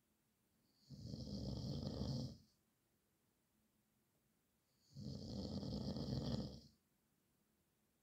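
A man snoring: two long snores, each lasting about a second and a half to two seconds and about four seconds apart, with silence between them.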